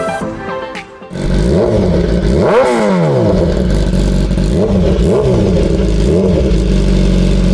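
BMW S1000RR's inline-four engine idling and revved in a string of short throttle blips through its exhaust, loud; the blips rise and fall quickly about once a second, the biggest one about one and a half seconds in. A song's last notes end about a second in.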